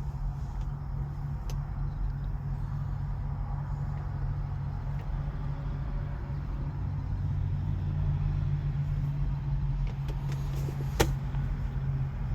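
A steady low engine hum from a motor vehicle running, not the no-start A5 itself, with one sharp click about eleven seconds in.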